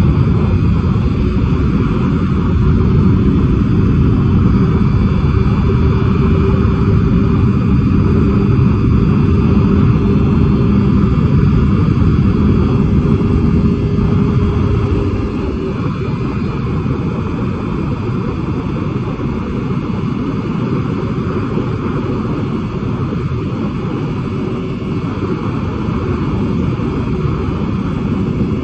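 Yamaha R3 motorcycle's 321 cc parallel-twin engine held at high revs, with heavy wind rush, heard from inside the rider's helmet. About halfway through, the steady engine note falls away and the whole sound gets quieter.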